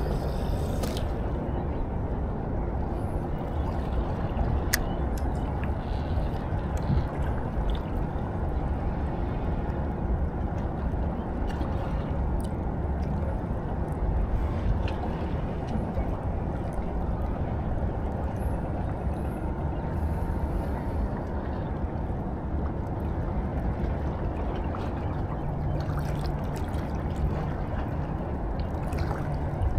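Steady low rumbling noise of wind and sea water at the shoreline, with a few faint clicks.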